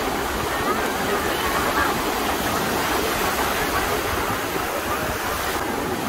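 Ocean surf breaking among the wooden pilings under a pier and washing in over the shallows: a steady rushing of waves.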